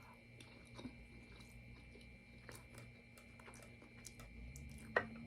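A person chewing food, with faint irregular wet mouth clicks and one sharper click about five seconds in.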